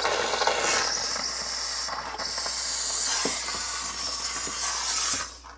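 Pur Steam handheld steam cleaner jetting steam onto ice on a frozen refrigerator evaporator panel: a steady loud hiss that dips briefly about two seconds in and cuts off near the end.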